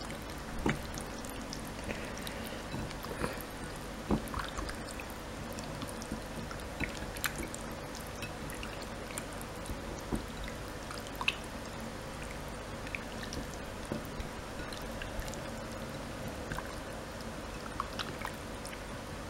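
Raw chicken wings being squeezed and turned by hand in a bowl of liquid marinade: scattered small wet squelches and clicks, every second or two, over a steady faint hum.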